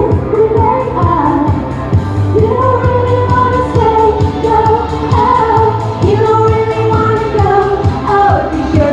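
Pop song performed live: a woman singing a held, gliding melody over a steady drum beat.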